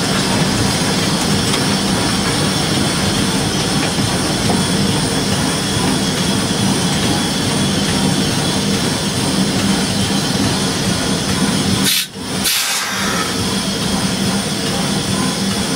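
Tweetsie Railroad #190, a 2-8-2 steam locomotive, running slowly, heard from inside its cab: a loud, steady mix of running-gear noise and steam hiss. It drops out briefly about twelve seconds in, then resumes.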